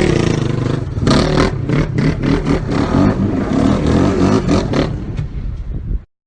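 Motorbike engine running under way, with repeated clattering knocks over the engine note. It eases off near the end and cuts off abruptly.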